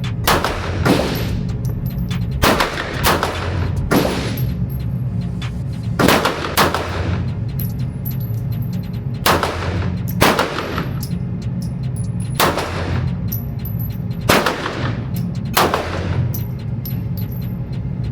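Handgun fired singly, about a dozen shots at uneven intervals of roughly half a second to two seconds, each with a ringing tail. A steady low hum runs underneath.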